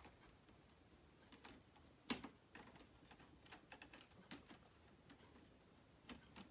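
Faint, scattered clicks and taps of K'nex plastic pieces being handled and clipped together, with one sharper click about two seconds in.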